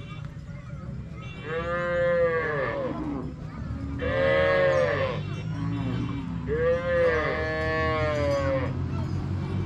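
Long-horned cattle mooing in a herd: three long, drawn-out moos one after another, the last the longest, over a steady low background of the herd.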